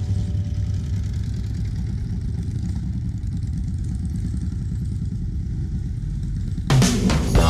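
Motorcycle engines running at low revs as a line of bikes rides slowly past one after another, a steady low rumble. Rock music cuts in near the end.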